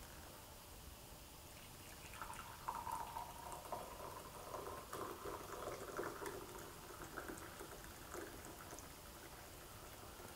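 Coffee pouring from a GSI JavaPress French press into a ceramic mug: a steady stream splashing into the mug as it fills. It starts about two seconds in and eases off near the end.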